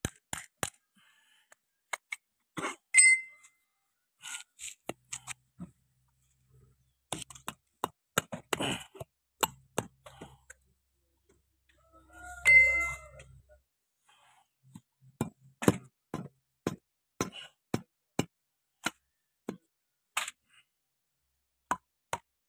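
Steel parts of a tractor's hydraulic steering cylinder clinking and knocking as the piston rod and fittings are handled and fitted together by hand: a run of sharp clicks and taps, with two louder ringing metal clinks, about three seconds in and about twelve and a half seconds in.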